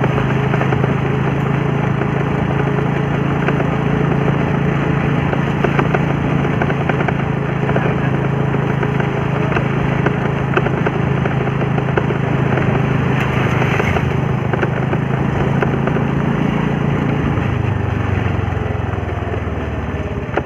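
Motor scooter engine running steadily under way, its note falling near the end as the scooter slows down.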